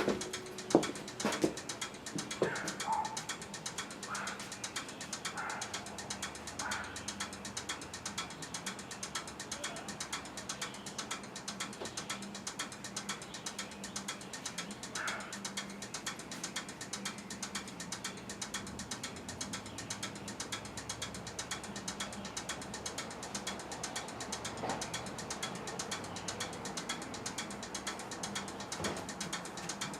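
Steady, fast mechanical clicking that never stops, with a low hum under it. A few louder knocks come in the first few seconds.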